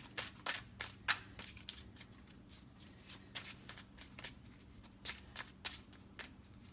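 A deck of tarot cards being shuffled by hand: a quick, irregular run of short card flicks and taps.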